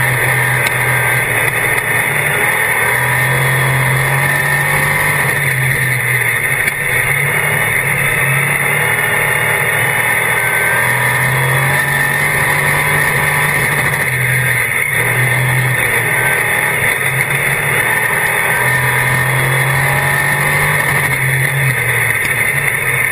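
Dirt-track Sportsman modified's V8 engine heard from inside the cockpit at racing speed, loud and steady, its note rising and dropping every few seconds as the driver gets on and off the throttle around the track.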